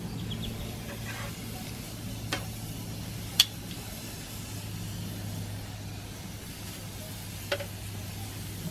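Raw chicken breasts sizzling on a gas grill's hot grate as metal tongs lay them down, with three sharp clicks of the tongs against the grate, the loudest about a third of the way in. A steady low hum runs underneath.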